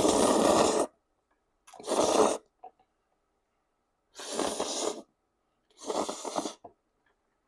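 A person slurping sauced jajangmyeon noodles: four loud slurps, each a second or less, about two seconds apart.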